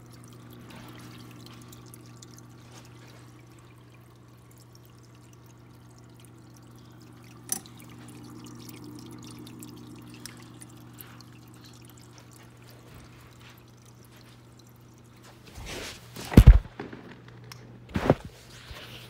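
Water trickling and splashing through the rear filter chambers of an all-in-one reef aquarium, over the steady hum of its return pump. Near the end come two loud knocks.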